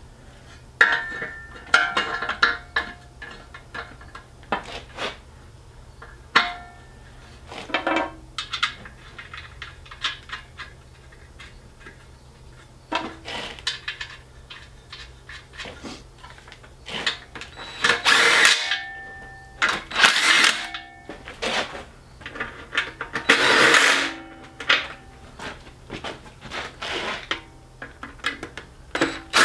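Metal clinks and knocks as bolts are set in and the welded steel E46 front subframe is worked into place against the engine block, some clinks ringing briefly. In the second half come three louder scraping rattles of metal on metal.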